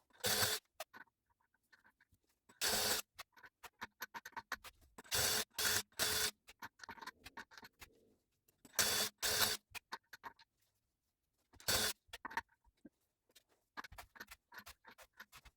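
A large drill bit cutting into a wheel's lug-bolt seat in short bursts of metal scraping, about eight in all, with small scratchy clicks between. It is shaving off the lip that wrong cone-seat bolts wore into the ball-seat hole.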